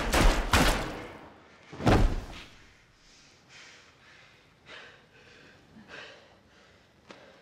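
Several heavy thuds in the first second, then a single louder, deeper thud about two seconds in, followed by faint scattered scuffles and breaths.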